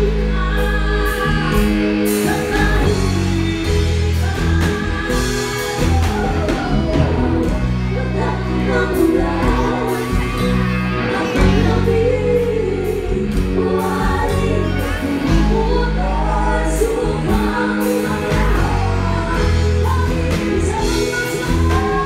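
Live band playing, with female voices singing the melody together over drums, bass and electric guitar.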